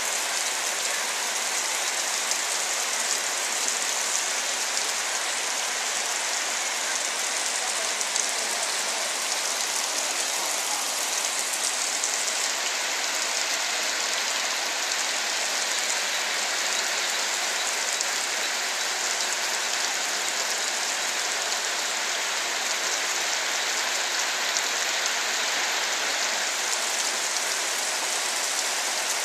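Steady rain falling, an even pattering wash with no pauses.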